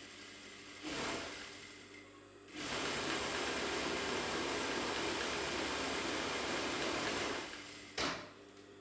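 Gemsy GEM8900 industrial sewing machine stitching through denim. It gives a short burst about a second in, then runs steadily at speed for about five seconds and winds down, followed by a sharp click near the end.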